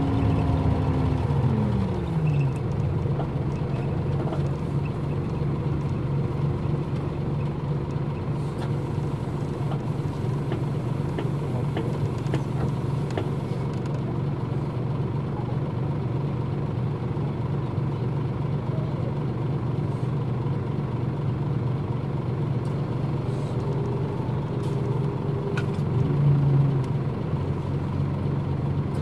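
Nissan Diesel KL-UA452MAN city bus's diesel engine: its note falls to idle over the first two seconds, then idles steadily. There is a short swell in level near the end.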